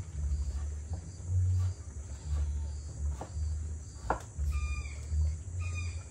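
Crickets trilling steadily, with short repeated bird calls starting about four and a half seconds in and a few sharp clicks. A low rumble swells and fades and is the loudest sound.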